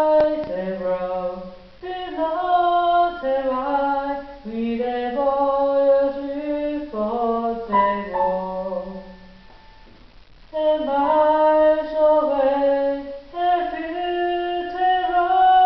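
Electronic keyboard playing a slow melody of held, steady notes in phrases, with a short pause about ten seconds in.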